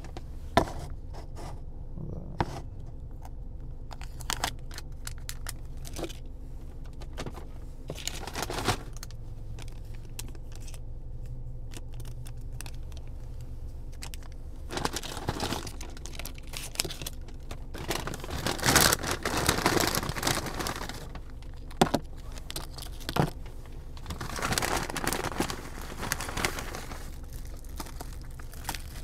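Paper bags and food wrappers rustling and crinkling in irregular bursts as takeout food is unpacked, with a few sharp clicks. A steady low hum runs underneath.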